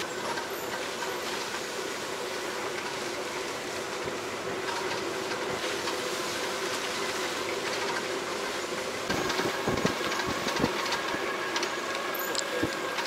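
Safari jeep driving along a rough forest track: steady engine and road rumble with rattling. About nine seconds in it grows louder, with a few jolting knocks.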